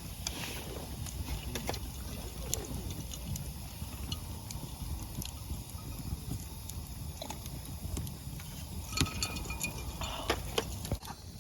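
Campfire crackling with sharp, scattered pops over a low steady rumble, and a few short ringing clinks of metal cookware near the end.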